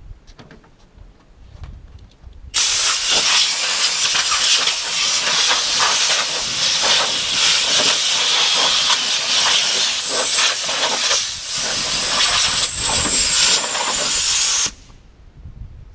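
Loud, steady hiss of a high-pressure jet cleaning the lawn mower, with a faint high whistle. It starts about two and a half seconds in and cuts off suddenly near the end.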